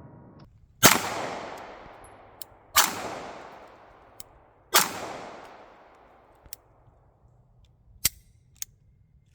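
Three pistol shots from a Taurus handgun, about two seconds apart, each trailing off in a long echo. A couple of faint clicks follow near the end.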